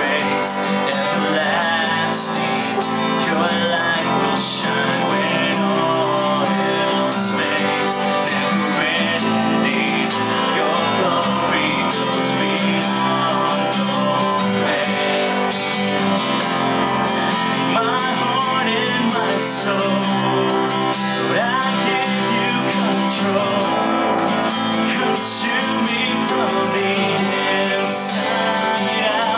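Acoustic guitar strummed steadily under a man's singing voice, a slow worship song performed live.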